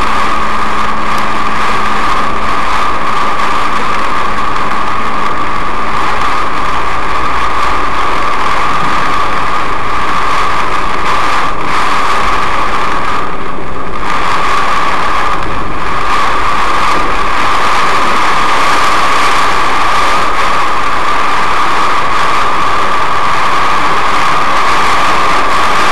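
Heavy cloudburst rain hitting a moving car's roof and windshield, heard from inside the cabin as a loud, steady hiss mixed with the car's road and engine noise. The hiss thins out briefly twice around the middle.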